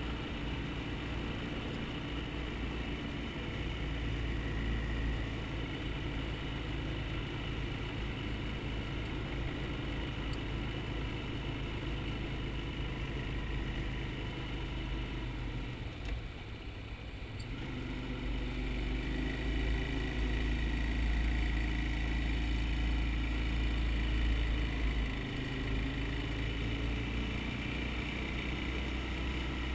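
Quad (ATV) engine running steadily as it drives along the beach. A little past halfway the sound drops briefly, then comes back somewhat louder.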